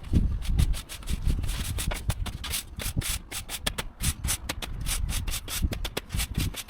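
Stiff broom sweeping over block paving in rapid, repeated scratchy strokes, brushing jointing sand back into the joints.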